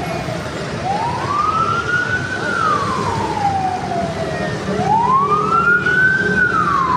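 An emergency vehicle's siren wailing over street traffic: a single tone that slowly rises and falls, twice, each rise and fall taking about four seconds.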